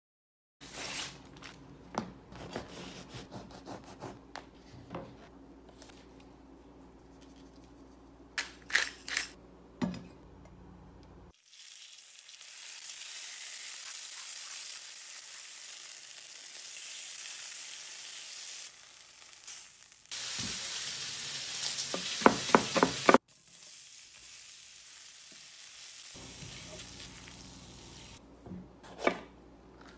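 Chicken sizzling in a cast-iron skillet: a steady frying hiss that turns louder for a few seconds, with scraping clicks of stirring in the pan. Before and after it come scattered kitchen knocks and clinks over a low hum.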